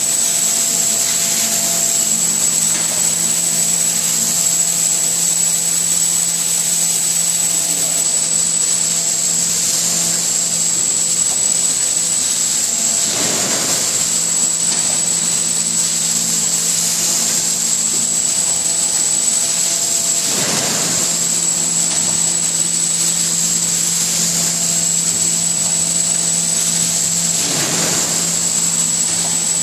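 Theisen & Bonitz Sprint paper collating machine running: a steady mechanical noise with a constant high whine and a low hum. A brief swell of noise comes about every seven seconds, three times.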